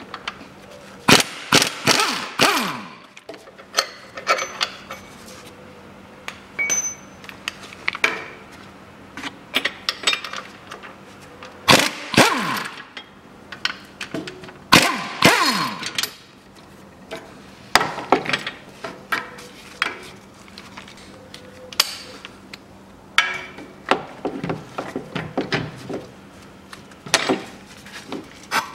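Pneumatic impact wrench run in several short hammering bursts, its pitch falling as it spins down after some of them, with metal clanks between: the rear lower engine mount bolts and their bracket bolts are being undone.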